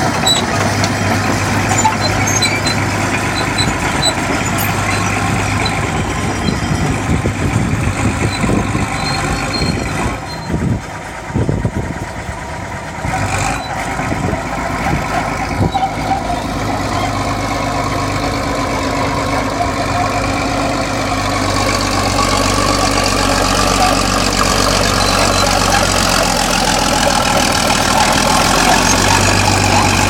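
Vintage crawler bulldozer's diesel engine running steadily as the machine works, pushing soil with its blade. The engine eases briefly about a third of the way in and grows louder toward the end.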